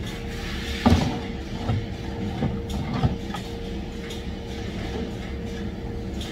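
Steady hum of factory machinery with a constant tone, and a few knocks and clatters of parts being handled in the first half, the loudest about a second in.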